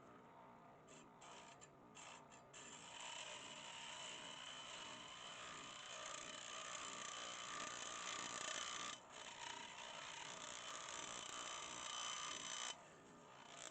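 Scroll saw running and cutting out a part, with a steady mechanical sound; it starts about two and a half seconds in, cuts out briefly near nine seconds, and stops about a second before the end.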